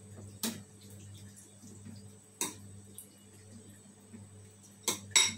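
A metal spoon clinking against a ceramic bowl as food is spooned in: a few sharp clinks spaced out, with two close together near the end, over a low steady hum.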